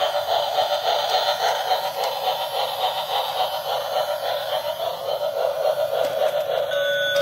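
Electronic sound effects from a battery-operated toy train switching on abruptly: a warbling, wavering electronic tone, joined near the end by a steady electronic tone.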